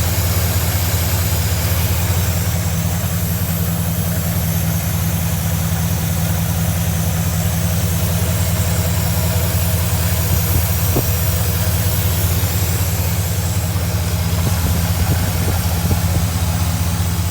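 A Chevy 305 small-block V8 idling steadily, on oil that has gone about two years without a change.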